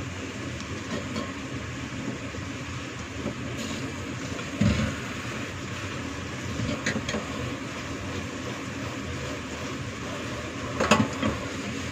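Choy sum and beef simmering in an uncovered pot: a steady bubbling hiss. A dull thump comes a little under five seconds in, and a short clatter of clicks comes near the end.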